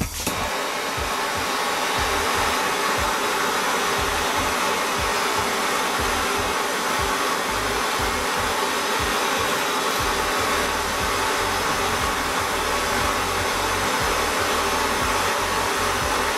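Bernzomatic handheld gas torch burning with a steady hiss, its flame heating a test tube of potassium chlorate to melt and decompose it.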